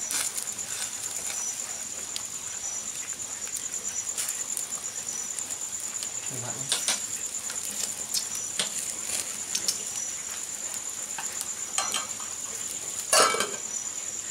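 Crickets chirring steadily at a high pitch over a crackling wood fire, with scattered pops and crackles from the burning firewood and the fish grilling over it. About a second before the end, a metal lid is set on the cooking pot with a sharp clank that rings briefly.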